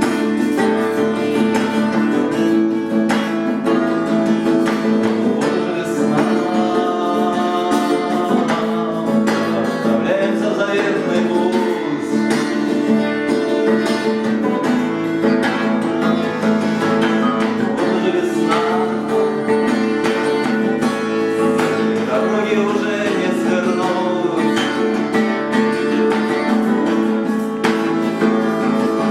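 Live acoustic guitar strummed steadily through a song, with a voice singing over it in places.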